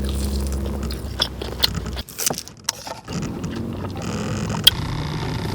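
Close-up mouth noises of someone eating a sauce-dipped chicken tender: wet chewing and smacking clicks, with low nasal hums of approval.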